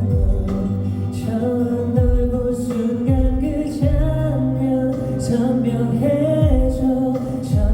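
K-pop song with group singing over a backing track, with deep electronic bass-drum hits that drop in pitch.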